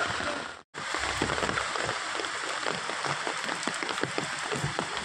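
Rain falling on a wet street, an even hiss with many small drop ticks. The sound drops out for a moment just under a second in.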